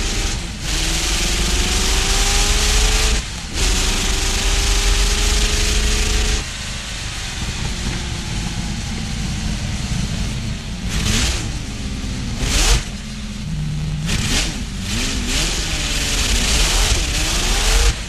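Auto Union Typ C's supercharged 6-litre V16 racing engine pulling hard through the gears. The pitch climbs, breaks briefly at an upshift about three seconds in, then climbs again. About six seconds in it backs off to a lower, wandering note with a few sharp cracks of throttle blips, and near the end it rises again under acceleration.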